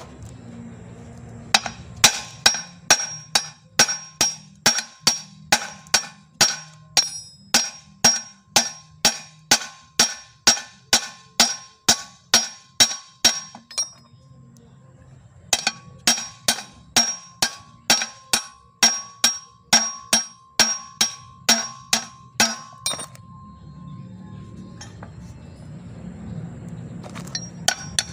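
Claw hammer striking the steel yoke of a propeller shaft's universal joint (cross joint) in steady blows, about two to three a second, each with a bright metallic ring, to drive the joint's bearing cups out. The blows come in two long runs with a short pause in the middle and trail off into a few scattered strikes near the end.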